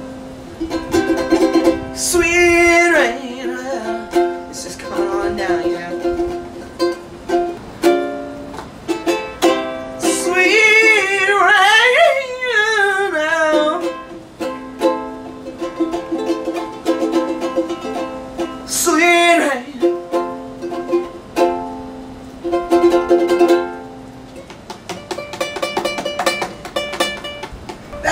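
Ukulele picked note by note, each pick meant as a raindrop falling. A wordless singing voice slides and wavers over it a few seconds in, through the middle, and once more later.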